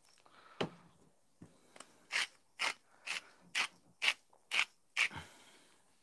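Glass hand-twisted spice grinder grinding, a crisp crunching scrape with each twist. Two single turns come first, then a run of about seven strokes at roughly two a second.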